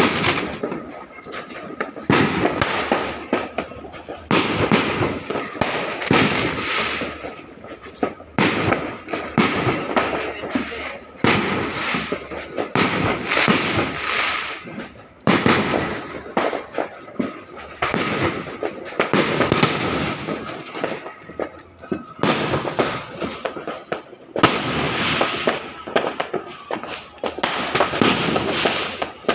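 Firecrackers and fireworks bursting nonstop from many directions, one bang after another and often overlapping, near and far, as if answering each other.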